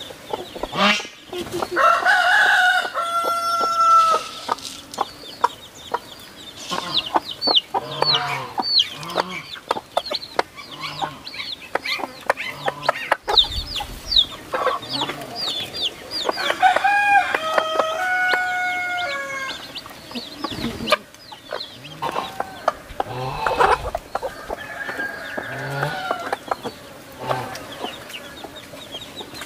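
A brood of chicks peeping in many short, high, falling chirps while a mother hen clucks low at a steady pace. A rooster crows twice, once near the start and once a little past halfway.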